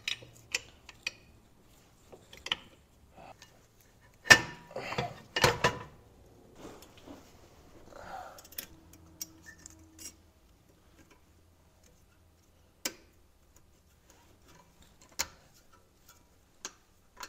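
Sparse metallic clicks and clinks of brake pads, caliper and hand tools being fitted on a BMW E46 rear disc brake, with two louder, briefly ringing clanks about four and five and a half seconds in.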